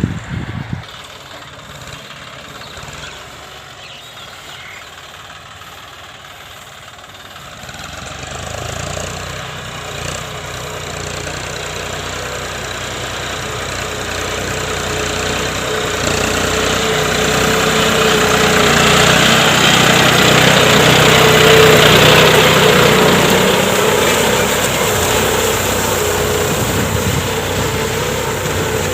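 John Deere 5050D tractor's diesel engine working at steady speed, faint at first, then growing louder as it comes closer. It is loudest about three-quarters of the way through and eases off a little near the end.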